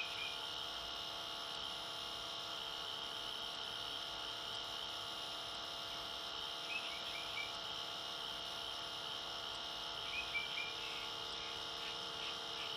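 Steady background hum and hiss, with a few faint short chirps near the start, about seven seconds in and about ten seconds in.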